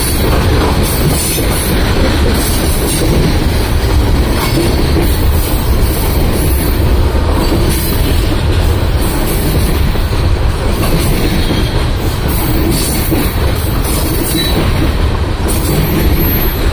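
Freight train of coal gondola cars rolling past at close range: a steady, loud rumble of steel wheels on rail, with recurring clicks as the wheels cross the rail joints.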